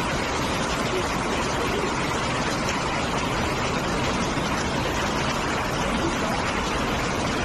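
Floodwater rushing in a steady, even flow.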